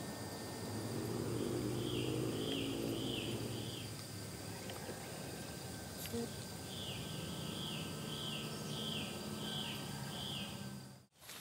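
Evening forest ambience: a small bird or insect gives short chirps, about two a second, in two runs (four, then seven), over a steady high-pitched drone of insects.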